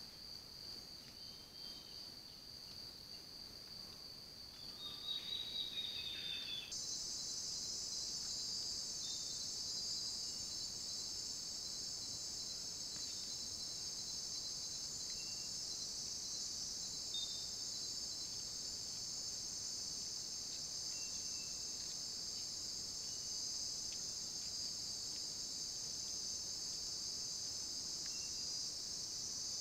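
Steady, high-pitched night chorus of insects in tropical forest. It sets in abruptly about seven seconds in, after a quieter stretch with a thinner insect buzz and a few short falling bird calls.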